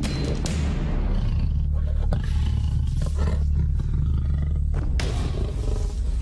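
Male lions growling aggressively as they confront a rival male, a deep, continuous rumble broken by a few sharp snaps.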